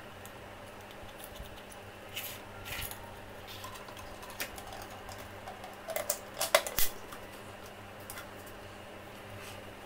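Clear plastic bottle parts being handled and fitted together, giving scattered light clicks and crinkles, the loudest cluster about six to seven seconds in, over a low steady hum.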